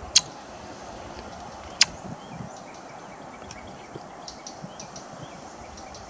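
Green kingfisher calling: two sharp, dry ticks about a second and a half apart, with a few fainter high ticks later, over a steady outdoor hiss.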